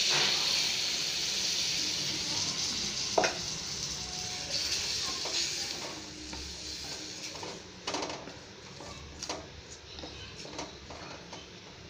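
Tamarind water sizzling as it hits the hot oil and fried small brinjals in a steel kadai. The sizzle is loud at first and dies down over several seconds. A spatula stirring the pan knocks against it a few times.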